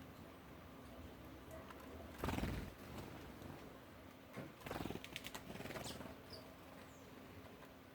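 Birds moving about. A short rustling flurry like wingbeats comes about two seconds in and is the loudest sound; a second flurry follows near five seconds. After that there are a few brief, faint, high chirps.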